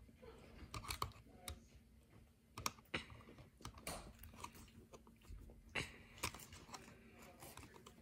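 Irregular light clicks, ticks and scrapes of a screwdriver's metal tip working at the plastic housing of a Wheelock Exceeder fire-alarm strobe, prying it open, with a few sharper clicks a little under 3 seconds in and again near 6 seconds.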